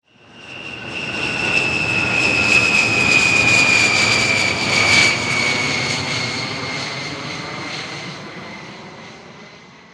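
Fighter jet flying by: the jet noise swells up from nothing, peaks about five seconds in and fades away. A high whine falls slowly in pitch as the jet passes.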